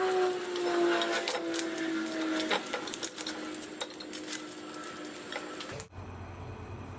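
A small motor whirring with a slowly falling pitch and many small clicks, cutting off abruptly about six seconds in.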